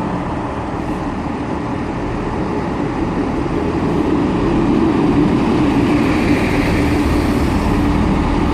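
Class 158 diesel multiple unit's underfloor diesel engines working under power as the train pulls out, a steady drone with a low hum that grows louder about halfway through.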